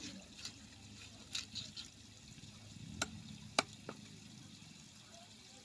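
Cleaver chopping a large fish into pieces: a handful of sharp chops, the two loudest about half a second apart around three seconds in, over a faint steady hiss.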